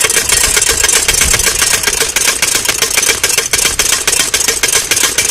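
Water spurting and splashing from a hose-fed, paw-pedal dog water fountain as a dog plays with it. It makes a rapid, even clatter of several beats a second over a steady hiss of spray.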